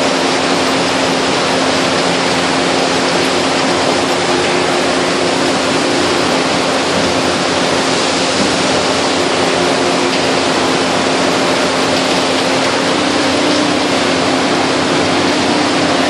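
International Baler TR12-T100 two-ram baler running steadily while baling old corrugated cardboard: a loud, constant mechanical noise with a steady hum underneath.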